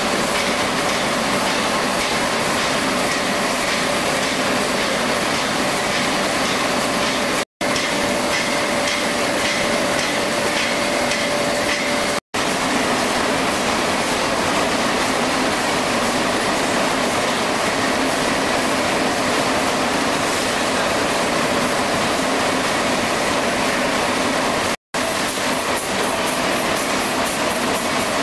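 Stationary steam engines running, among them a Tangye horizontal engine and large horizontal mill engines, giving a steady dense hiss mixed with machinery noise. The sound breaks off for an instant three times.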